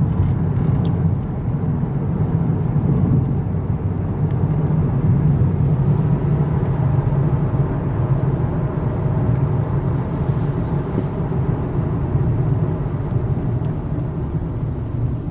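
Steady car cabin noise while driving: a low engine and road rumble heard from inside the moving car.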